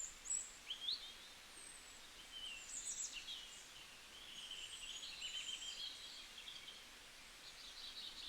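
Several small songbirds singing together: overlapping high chirps, quick rising notes and short rapid trills over a light steady hiss.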